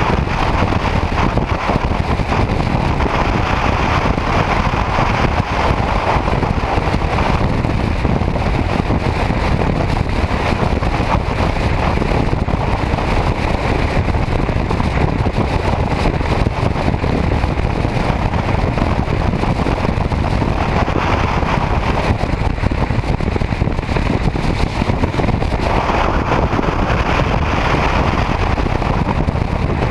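Motorcycle cruising at highway speed: a steady rush of wind over the microphone mixed with engine and road noise, unchanging throughout.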